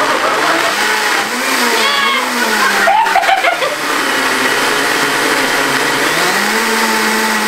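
Blendtec countertop blender running on its smoothie cycle, blending a whole raw ostrich egg to a froth. The loud motor whir changes pitch several times as the program shifts speed.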